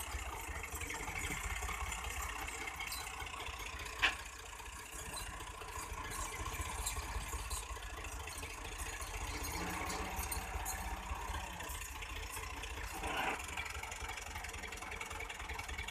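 Massey Ferguson 260 tractor's diesel engine idling steadily, with one sharp knock about four seconds in.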